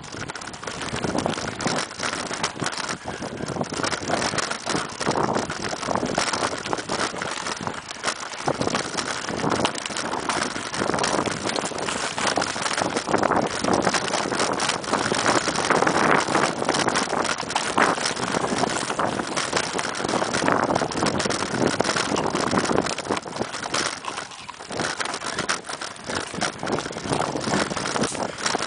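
Mountain bike ridden fast over a rough dirt forest trail: tyres running on dirt and roots, and the bike clattering and rattling over bumps, with wind noise on the microphone.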